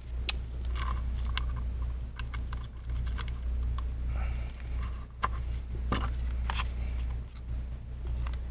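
Scattered small clicks and taps of nitrile-gloved fingers pressing and handling a replacement iPad glass digitizer and its home button, over a steady low hum.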